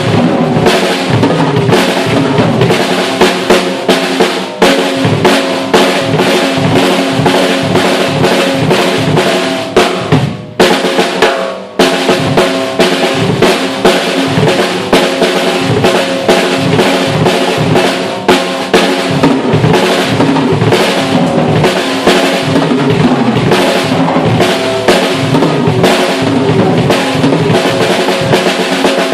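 Tama Starclassic Performer birch/bubinga drum kit played fast, with rapid double bass drum strokes on a double pedal, snare and cymbals, and the drums' ring sounding under the hits. The playing breaks off briefly a little past ten seconds in. The kit is still not fully tuned.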